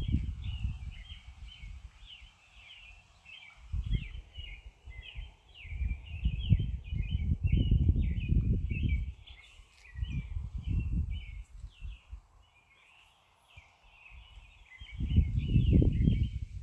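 Birds chirping steadily in the background, with repeated bursts of low rumbling that come and go and are louder than the chirping.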